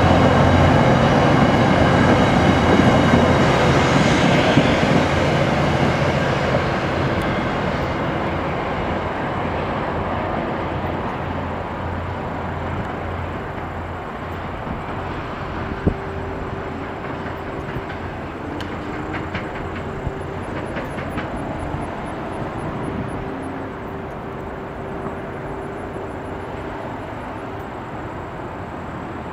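Virginia Railway Express commuter train's bi-level cars rolling past on the rails. The rolling noise is loud at first and fades over the first several seconds as the train moves away, leaving a fainter distant rumble of the train.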